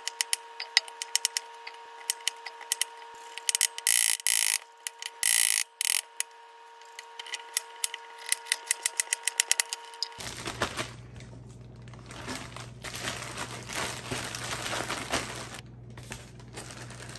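A cleaver chopping vegetables on a wooden cutting board: sharp knocks, in quick runs of strikes. About ten seconds in, this gives way to a continuous rustle of a plastic bag being shaken to coat rabbit pieces in flour.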